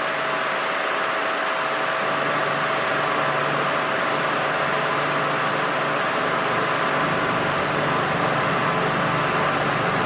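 A 50 cm wall fan running at top speed: a steady rush of air with a faint steady tone riding on it, the low hum filling in slightly in the second half.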